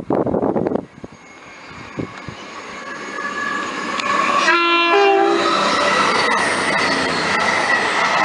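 A train running through the station without stopping, its noise growing steadily louder as it approaches. About four and a half seconds in it sounds its two-tone horn briefly. Loud wheel-on-rail noise with a high whine follows as it passes.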